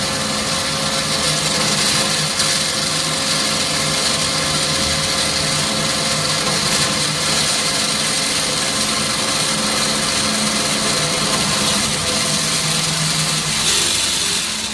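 IMET KS-1202 NC metal-cutting band saw running steadily: a constant machine hum with a hiss over it, shifting slightly about a second before the end.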